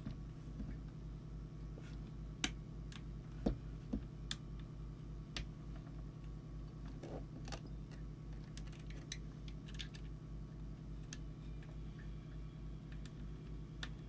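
Small sharp clicks and light scrapes, scattered and uneven, of a tuning tool working a coil core in a CB radio's circuit board while the transmitter is peaked for maximum output. A low hum pulsing about three times a second runs under them.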